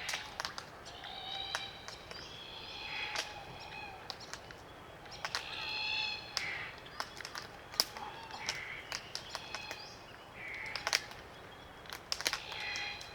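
Glossy black cockatoos giving creaky, grating calls, several in turn, over sharp scattered clicks from their bills working Allocasuarina cones as they feed.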